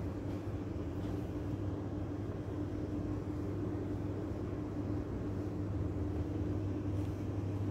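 Steady low machine hum with a constant droning tone.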